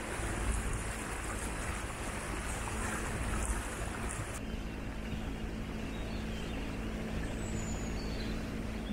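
Small sailing boat's engine running steadily under way: an even low drone. A few faint bird chirps come near the end.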